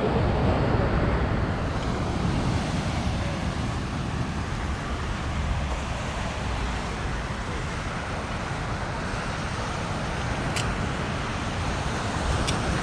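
Seaside street ambience: passing road traffic and breaking surf blend into a steady wash, with wind rumbling on the microphone. Two or three short ticks come near the end.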